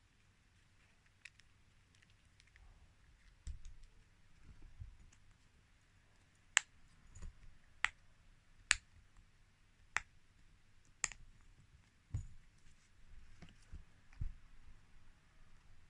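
Fidget toy being clicked by hand: sharp single clicks roughly a second apart through the middle, with soft low thumps of the toys being handled before and after.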